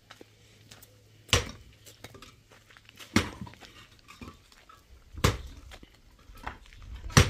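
Four sharp knocks, evenly spaced about two seconds apart, as something is struck again and again.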